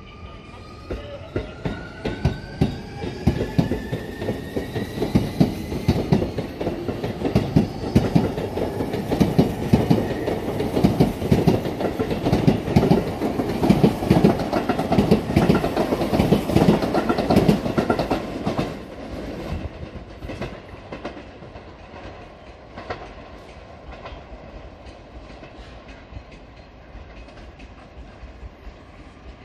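Sotetsu 20000 series electric train pulling out of a station: the VVVF inverter traction motors whine, rising in pitch over the first several seconds, while the wheels click over the rail joints faster and louder as the cars pass close by. After about two-thirds of the way through, the sound fades as the train draws away.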